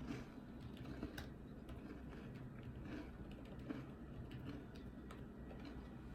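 Scattered light clicks and taps of small objects being handled, over a low steady hum.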